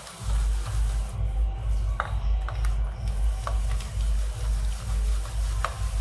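A hand beating ghee and powdered sugar in a steel plate, creaming the mix until fluffy: rhythmic rubbing strokes with low thuds, starting just after the beginning, and a few sharp clicks against the metal.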